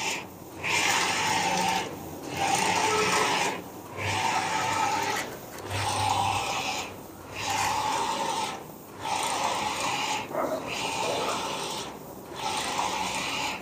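Print carriage of a Sultanjet 512i flex printer sweeping back and forth across the banner. Each pass is a whirring run of about a second and a half with a steady whine in it, followed by a brief lull as the carriage turns, repeating about every one and a half to two seconds.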